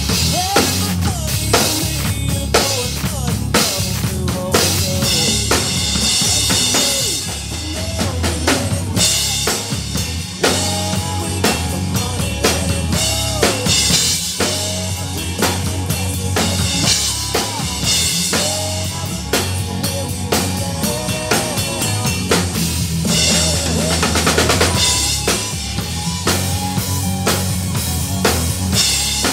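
Acoustic drum kit played hard in a steady rock beat, with bass drum, snare and washes of crash and ride cymbal, along with a recorded country-rock song that carries a male singing voice and bass guitar.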